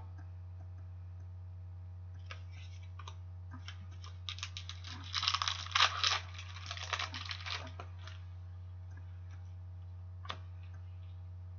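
A 2013-14 Upper Deck Series 2 hockey card pack being torn open: its wrapper crackles and rustles in a dense run through the middle, with a few light ticks before it and a single click near the end. A low steady hum runs underneath.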